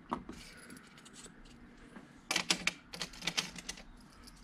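Handling noise from small hand tools and the opened bulb's parts: a click just after the start, then a quick run of sharp clicks and light taps about two to three and a half seconds in.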